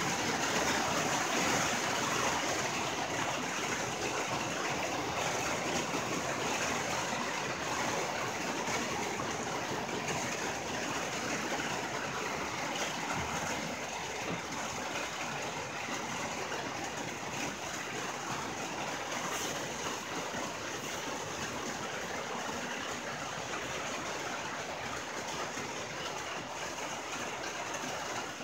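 Rain falling steadily on a tin roof, a dense even patter that eases slightly over the stretch.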